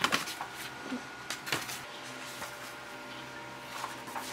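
Paper planner pages rustling and brushing as they are handled, in a few short strokes: one right at the start, one about a second and a half in, and a couple near the end.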